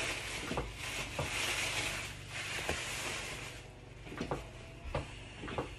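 Plastic packaging crinkling and rustling as items are rummaged in a cardboard box, with scattered light clicks. The rustling stops a little over halfway through, followed by a few separate light knocks of handling.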